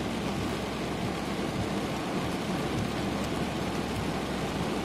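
Heavy rain on the car, heard from inside the cabin: a steady, even hiss of the downpour.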